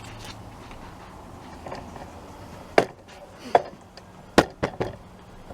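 About five sharp knocks on hard objects, coming in the second half over roughly two seconds; the third is the loudest.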